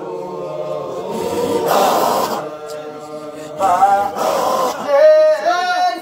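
Men's group chanting a Sufi Qadiriya dhikr, several voices together holding long sung notes, loudest about five seconds in.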